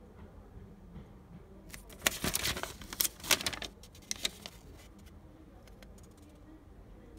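A paper instruction leaflet rustling and crackling as it is unfolded and turned in the hands. There is a burst of crisp crackles about two seconds in that lasts a couple of seconds, and a few smaller crackles near the end.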